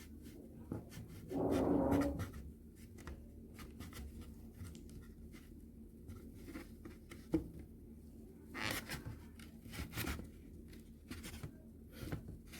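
Light scraping, rubbing and tapping of objects handled on a tabletop, with a louder rustle about a second and a half in and a few sharper ticks and scrapes later.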